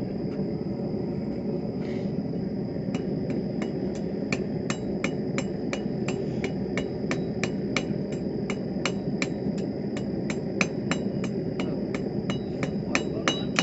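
Hand hammer striking 1/4-inch mild steel rod on an anvil during forging, a steady run of ringing blows about three a second that starts about three seconds in. A steady low rushing noise runs underneath.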